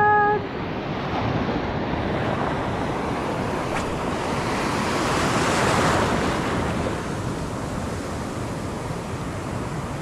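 Surf washing on the shore: an even rush of breaking waves that swells to a peak about five or six seconds in, then eases off.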